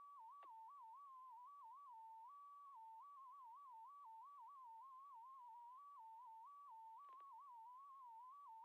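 Near silence, with a faint electronic tone that hops back and forth between two close pitches, plus a couple of tiny clicks.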